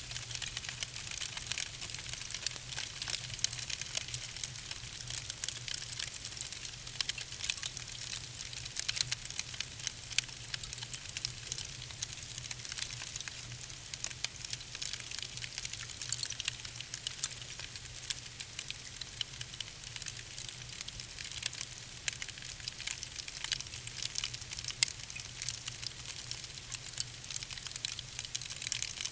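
Fire crackling: a dense, continuous run of small pops and snaps over a steady hiss, with a low steady hum underneath.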